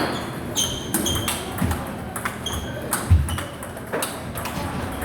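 Table tennis rally: a celluloid ball clicking off the table and rackets in quick succession, several hits with a short high ping. A single dull thump, the loudest sound, about three seconds in.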